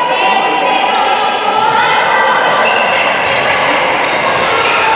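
Handball play in a sports hall, echoing: the ball bouncing on the wooden court, with sharp squeaks from players' shoes and their calls.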